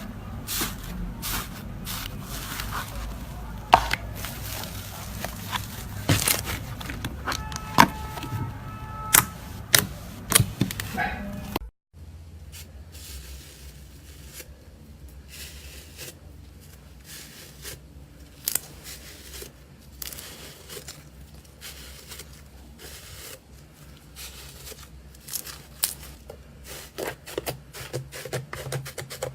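Slime being poked and squished by hand: a run of sticky clicks, pops and crackles. There is a brief total silence about twelve seconds in, after which softer clicking goes on over a low hum.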